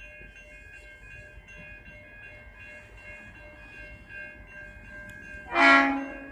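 A diesel locomotive's horn gives one short loud blast, about two-thirds of a second long, near the end. Under it runs a faint steady hum with several held tones.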